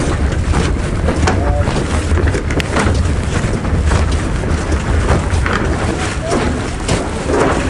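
Wind buffeting the microphone with a steady low rumble, over irregular footsteps and knocks on a metal pontoon and gangway.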